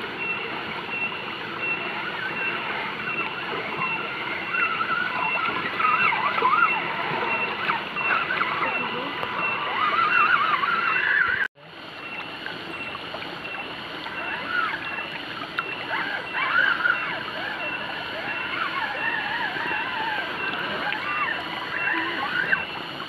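The electric motor and geartrain of an RGT RC rock crawler whine, the pitch rising and falling with the throttle, as it drives through a shallow rocky stream over the steady rush of running water. The sound drops out sharply for a moment about eleven and a half seconds in, then resumes.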